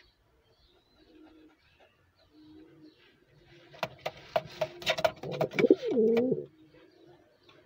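Pigeon cooing inside a wooden nest box: soft low coos at first, then about four seconds in a burst of sharp clicks with louder coos that slide down in pitch.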